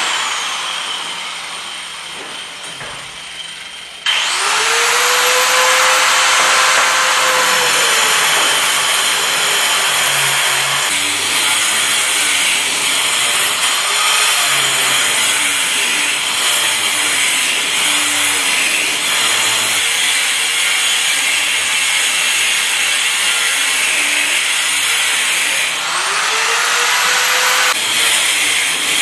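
Handheld angle grinder: it winds down at the start, is switched on again about four seconds in with a rising whine, then cuts into the wall under load for some twenty seconds, its pitch wavering as it bites. Near the end it eases off briefly and speeds up again. It is cutting a channel in the wall for new electrical wiring.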